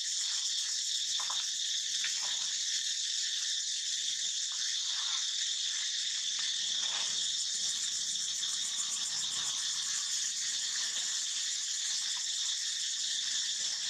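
A steady, high-pitched chorus of insects buzzing without a break, with a few faint short rustles beneath it.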